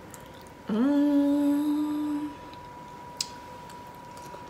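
A woman's closed-mouth "mmm" hum while eating shrimp nachos, gliding up briefly and then held on one steady note for about a second and a half: a sound of enjoyment of the food.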